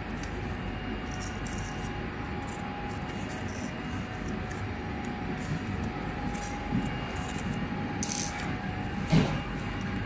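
Steady machinery hum with a faint constant whine. A few light clicks come over it, and a single knock near the end.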